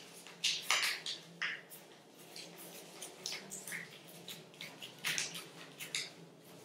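Paper being folded and creased by hand: irregular crisp crinkles and rustles, in louder clusters near the start and about five seconds in.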